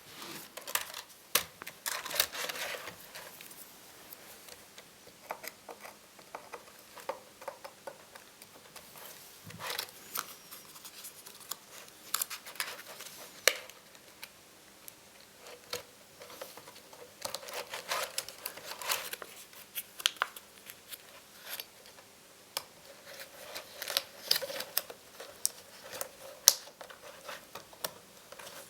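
Hands working on laptop parts: irregular sharp clicks, scrapes and crinkling of plastic and small components, in clusters with quieter gaps between.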